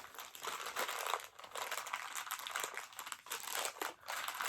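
Crinkling and crumpling of a Funko Mystery Minis blind-box package being torn open and handled, an irregular rustle that comes and goes.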